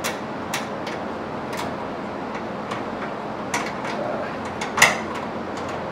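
Irregular small clicks and knocks from terminals being worked off the studs of a MIDI fuse holder by hand, over a steady background hiss. The loudest knock comes near the end.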